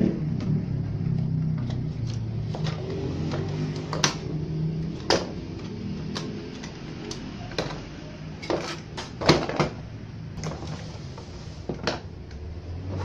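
Irregular clicks, knocks and rattles of plastic and metal parts being handled as a Sony VCD component is disassembled: the plastic disc-mechanism frame, a metal heatsink and circuit boards being moved and pulled out.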